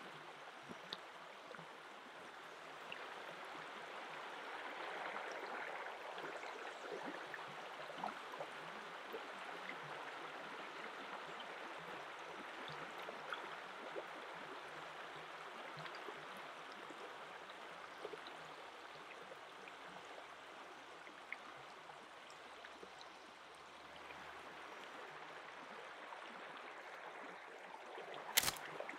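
Shallow river running over pebbles and small rapids, a steady rushing, gurgling flow, with a few faint clicks and one sharp snap near the end.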